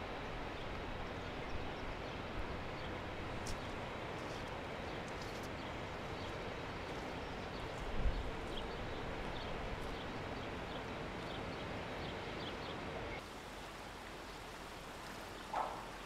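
Steady outdoor rushing noise with a single thump about halfway through. It drops to a quieter ambience about 13 seconds in, with a brief chirp near the end.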